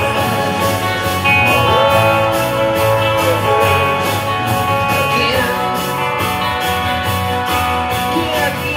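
Rickenbacker electric guitar played in a rock song over a full band track, with bass and drums keeping a steady beat.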